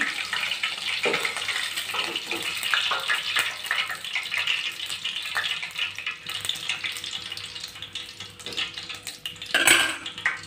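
Fish pieces frying in hot oil in a wok, a steady sizzle full of small crackles, with metal clinks of a slotted spoon against the pan as pieces are turned and lifted out. There is one louder clatter near the end.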